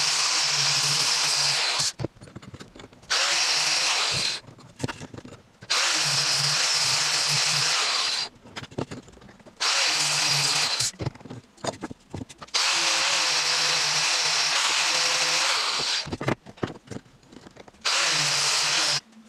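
Angle grinder fitted with a sanding disc running against a pine pallet board, sanding it smooth. It runs in six steady spells of one to three and a half seconds each, broken by short pauses.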